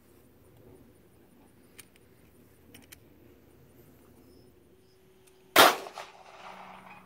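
A single handgun shot: one sharp crack about five and a half seconds in, followed by a short echo that dies away over about a second. A few faint clicks come before it.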